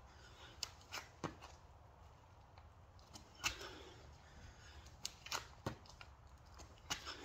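Hands and sneakers striking a thin exercise mat on asphalt during a burpee: a scatter of short, sharp taps and thuds, about nine of them, some in quick pairs.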